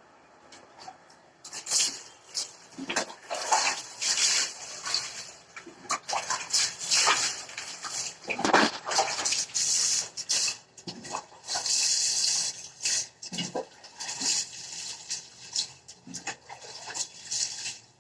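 Water splashing and rubbing in irregular bursts as a cat is washed, with a few short animal sounds mixed in.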